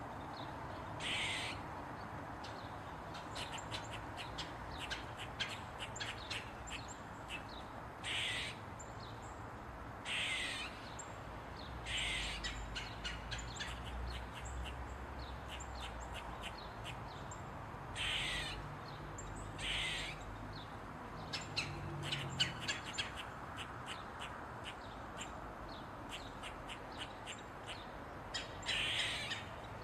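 Eastern gray squirrel barking: about seven harsh, high-pitched calls, each about half a second long and slightly falling in pitch, coming at uneven intervals. Quick runs of short chirps fall between the calls.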